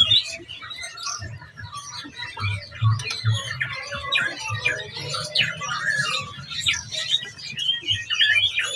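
Caged songbirds chirping and calling rapidly over one another, with low dull thumps underneath.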